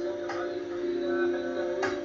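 Recorded music playing: a lo-fi track of held, steady chord tones with a short melodic figure over them, punctuated by two sharp percussive hits about a second and a half apart.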